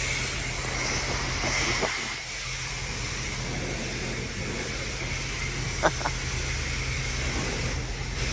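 Pressure washer running with its spray hissing steadily over a low motor hum, with two short sharp clicks close together about six seconds in.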